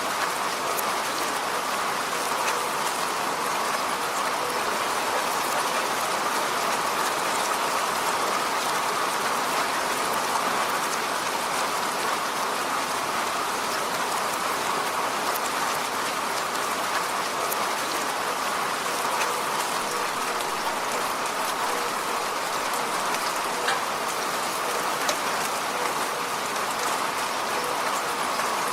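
Steady rain falling on a road: an even hiss of rainfall with many small drop ticks, unchanging throughout.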